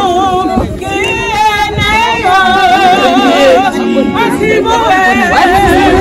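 A group of voices, mostly women, singing together in a traditional Tswana wedding song, with a strong wavering vibrato in the held notes.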